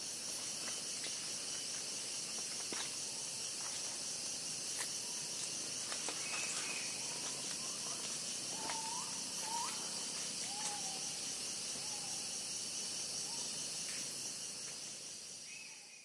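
Tropical rainforest insect chorus: a dense, steady, high-pitched shrilling with a fast pulse. A few short gliding bird calls come through around the middle, and the whole sound fades out at the end.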